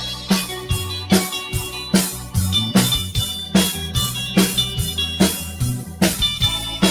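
Live band playing an instrumental passage with no singing: a steady drum-kit beat of about two to three hits a second, a bass line and guitar.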